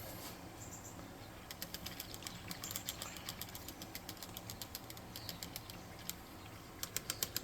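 A paintbrush dabbing and scrubbing against a miniature's textured base, a run of quick, faint, irregular ticks that starts about a second and a half in, over a steady low room hum.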